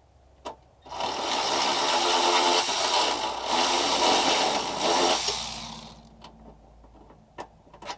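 A power tool spins a 1/2 inch socket, running for about four and a half seconds as it backs out a battery-tray bolt, then winds down. A few sharp clicks from the socket and bolt follow near the end.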